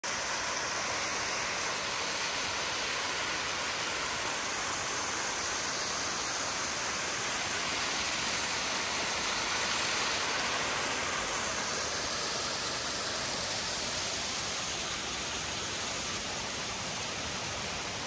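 Waterfall in full spate: falling water rushing as a steady, even hiss, slightly quieter in the last two seconds.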